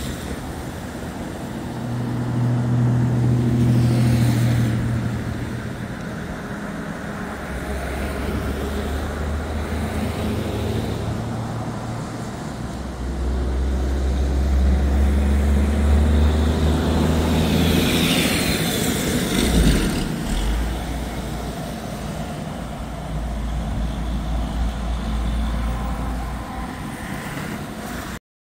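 Road traffic: cars and trucks driving past one after another, each swelling and fading, with the two loudest passes early on and about halfway through. The sound cuts off abruptly near the end.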